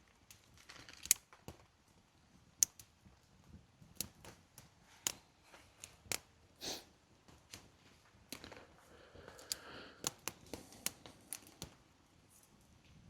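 Campfire wood crackling, with irregular sharp pops and snaps and a short hiss about halfway through.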